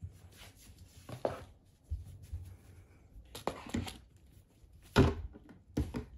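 A cat's plastic Elizabethan collar scraping and knocking against chair legs and the floor as the cat moves around in it, in a few short bursts with one sharp knock about five seconds in.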